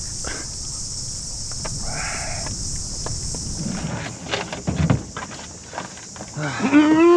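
Insects buzzing in a steady, even high drone that stops abruptly about four seconds in. Then come a few light knocks and taps as things are handled in a golf cart's front tray, and near the end a person's drawn-out, wavering vocal cry.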